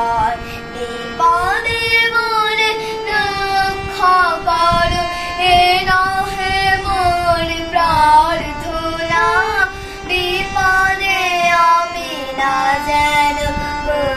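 A young girl singing a melody with bending, ornamented held notes, accompanying herself on a hand-pumped harmonium that sustains steady notes beneath her voice.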